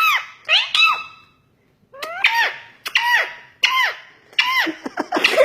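Pet parrot giving a series of short, squeaky calls, each swooping up and then down in pitch, with a brief pause before the second half.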